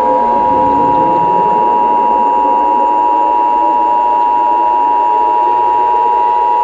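Emergency Alert System attention signal: two steady tones sounded together, held unchanged over a hiss of static-like noise.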